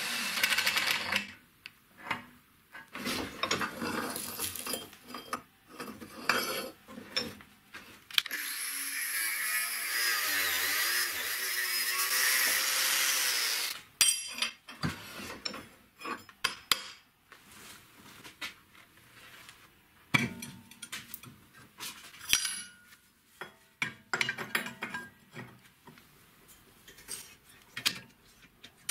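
A power drill with a step drill bit cutting into square steel tube, briefly at the start and again for about five seconds midway, between many short metal clinks and knocks of steel pieces being handled.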